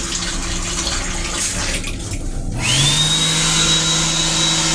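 Water running in the M7 railcar restroom. About two and a half seconds in, an electric motor in the restroom spins up with a quick rising whine and runs steadily with a loud rushing noise.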